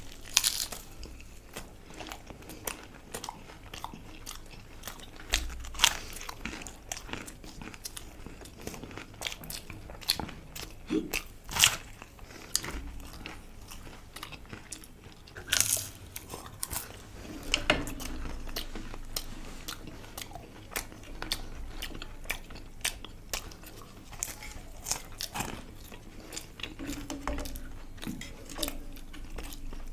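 Close-miked chewing and biting into a deep-fried samosa, with crisp crunches scattered throughout and a handful of louder, sharper crunches standing out.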